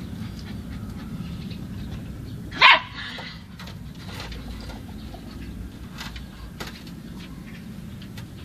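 Small dog barking once, sharply, about two and a half seconds in, with faint scratching and clicking from it working at a wooden fence, over a steady low background rumble.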